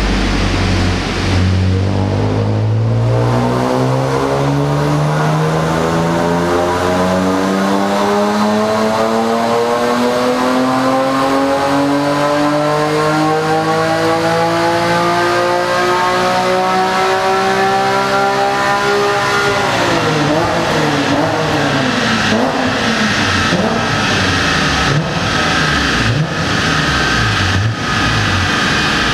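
BMW E46 M3's straight-six through a full Supersprint race exhaust, its pitch climbing smoothly for about eighteen seconds as the revs build, then dropping sharply as the throttle closes. Over the last several seconds the pitch wavers unevenly, with a few sharp cracks.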